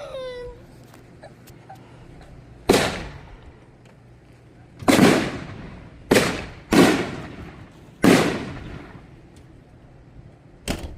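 Fireworks bursting: about six sharp booms a second or two apart, each with a long fading echo.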